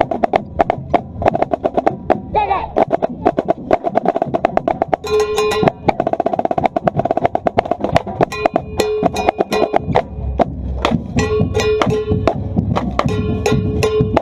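Marching snare drum line playing a fast street cadence at close range: rapid stick strokes and rolls on high-tuned marching snares. A block mounted on the drum is struck in short rhythmic passages, giving a pitched knocking ring over the snare.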